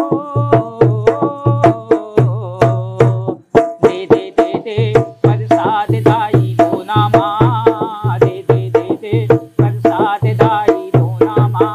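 Dholak (two-headed rope-tuned barrel drum) played with the bare hands in a quick, driving rhythm, with deep bass strokes about twice a second under sharp treble slaps. A man sings a Chhattisgarhi jas geet, a devotional folk song, over the drum.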